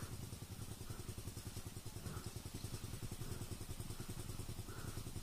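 Motorcycle engine running steadily at low revs, a fast, even pulsing with no revving up or down.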